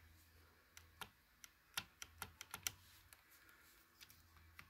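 Faint, irregular light clicks of the spring-loaded brake blocks on a homemade quad brake assembly being pushed by hand and shifting on their mounts, free to float as they should.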